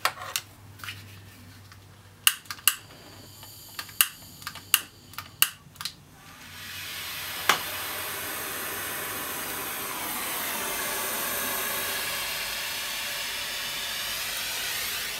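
MAPP gas hand torch being lit: a run of sharp clicks, then about six and a half seconds in the flame catches and hisses steadily.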